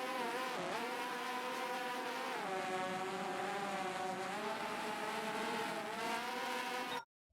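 DJI FPV drone's motors and propellers whining steadily. The pitch dips briefly about half a second in and drops a step about two and a half seconds in as the throttle changes. The sound cuts off abruptly near the end.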